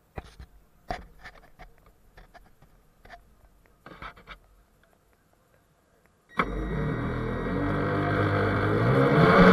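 A few scattered clicks and knocks from the RC boat's onboard camera being handled. Then, about six seconds in, the RC boat's motor starts suddenly and runs, its pitch rising slowly.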